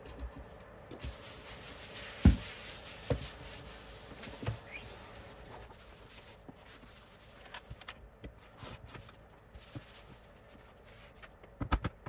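Desk items being lifted and set down on a desktop, with one sharp knock about two seconds in, a few lighter knocks after it, and a quick run of knocks near the end. In between, a tissue rubs faintly across the desk surface as it is wiped.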